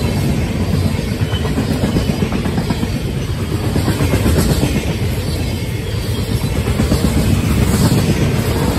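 Freight cars of a Florida East Coast Railway train rolling past close by: boxcars and tank cars, their wheels on the rails making a loud, steady run of noise with fine rapid clicks.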